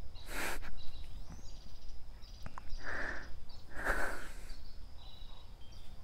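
A man breathing heavily and sniffing through his nose, three short breaths about half a second in, about three seconds in and about four seconds in, as he holds back tears. Faint insects and birds chirp steadily behind.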